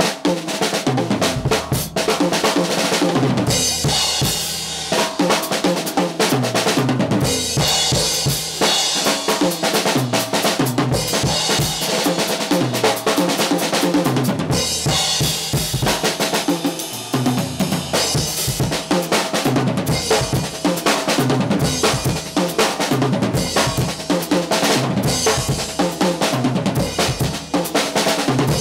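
Drum kit played solo: bass drum kicks, snare and tom hits and cymbal crashes in a busy, continuous pattern that starts at once.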